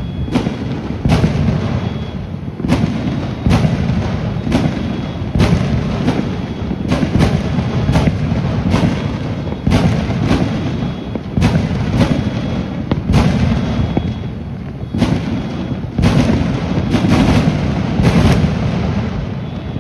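Many fireworks exploding at once across a city: sharp bangs one or two a second over a continuous rumble of more distant booms.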